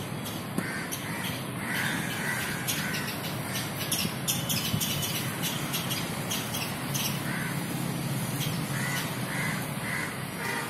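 Crows cawing in short repeated calls, one run about two seconds in and another near the end, over a steady low hum.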